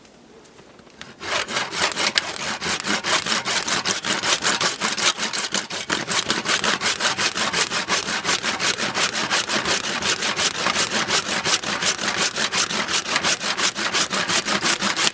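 Hand saw cutting through dry branches in quick, even back-and-forth strokes, starting about a second in.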